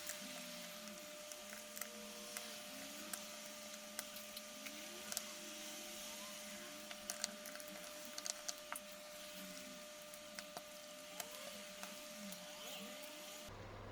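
Scattered light clicks and taps of tools, screws and plastic housing parts being handled while an electric drill is taken apart, over a faint steady hiss that cuts off suddenly near the end.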